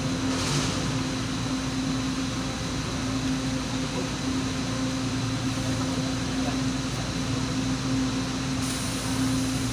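Steady hum of a stopped LRT-2 light-rail car's onboard equipment: a low drone with one constant tone. A higher hiss comes in near the end.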